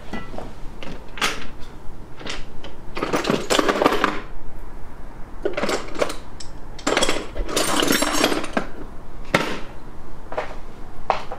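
Metal tools working on a bicycle cassette lock ring: intermittent bursts of rapid metallic clicking and clattering, each a second or so long with short pauses. The longest runs come about three to four seconds in and again about seven to eight and a half seconds in. This is the lock ring being tightened down on a 7-speed cassette fitted with spacers onto an 11-speed hub.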